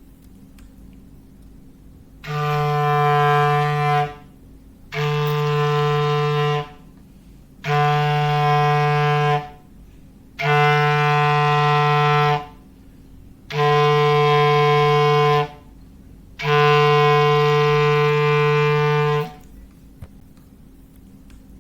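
Clarinet playing a low foghorn imitation: one held note sounded six times, each blast about two seconds long with short gaps between, the last held a little longer.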